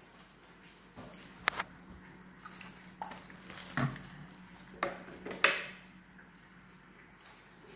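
Thin plastic carrier bag crinkling in short, sharp crackles as a cat wriggles inside it, about half a dozen over a few seconds, the loudest about five and a half seconds in.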